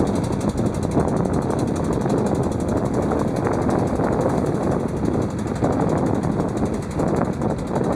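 Motorboat engine running steadily under way, mixed with wind rumbling on the microphone.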